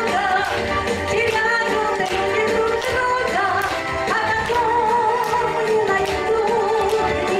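Pop song with a woman singing long, wavering notes over a backing track with a steady beat.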